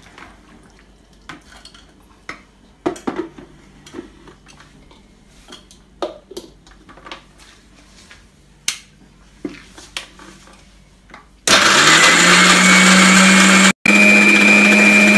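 Scattered light clicks and knocks, then about eleven seconds in an electric mixer grinder starts, its motor rising in pitch as it spins up and then running loud and steady while grinding fresh green corn kernels into paste. It cuts out for an instant near the end and comes straight back.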